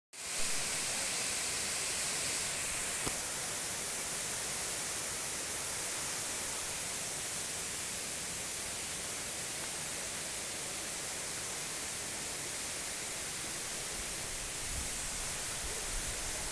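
Waterfall rushing: a steady hiss of falling water, with a brief low rumble near the end.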